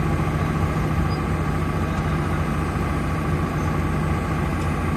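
Hitachi hydraulic excavator's diesel engine running steadily while the machine digs, a constant low hum with no breaks.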